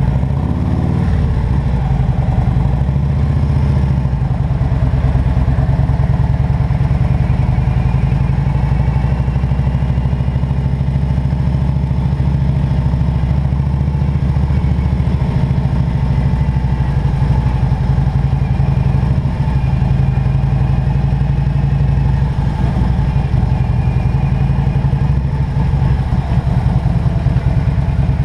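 Harley-Davidson Road King's V-twin engine running steadily with a low, even rumble.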